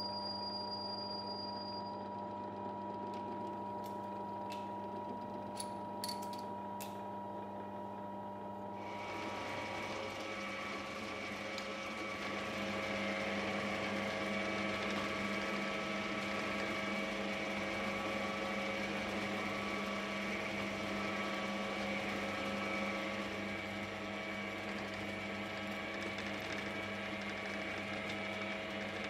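A small metal lathe running steadily with a hum. About a third of the way in a drill press starts drilling through a metal ring, and the sound becomes louder and noisier as the bit cuts.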